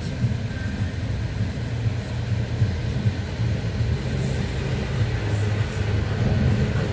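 Thunderstorm with strong wind: a steady low rumble under an even hiss.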